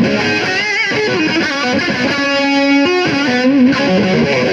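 Electric guitar played through the Blackstar HT-40 amp's own distortion, with no pedal engaged: a lead line of bent notes and a long held note with vibrato about two seconds in.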